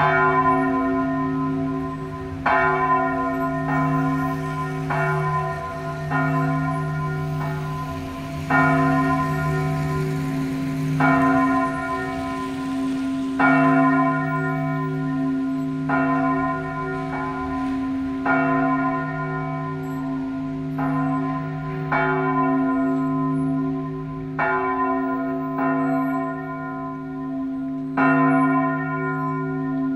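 Church bells of the Duomo di San Giorgio tolling a death knell: a strike every one to two seconds, with a deep hum ringing on between the strikes.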